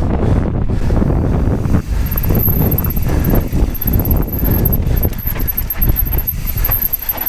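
Wind rushing over the camera microphone and the rattle of a Giant Trance mountain bike descending a dry dirt trail at speed: tyres running over loose dirt and the bike knocking over bumps.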